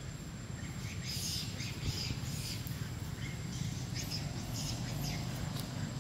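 Birds chirping in short, scattered calls over a steady low outdoor rumble.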